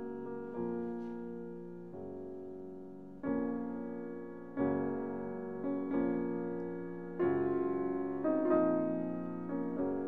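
Background piano music: slow chords, each struck and left to fade, a new one about every second or so.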